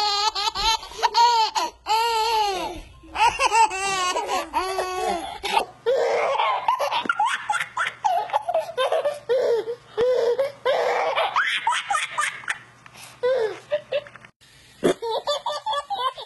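Babies laughing in rapid, repeated bursts of giggles and belly laughs. The sound changes abruptly twice as it jumps from one baby's laughter to another's.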